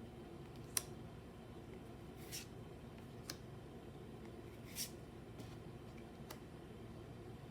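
Pokémon trading cards being handled by hand: a sharp click a little under a second in, a couple of short soft card swishes, and a few light ticks over a faint steady hum.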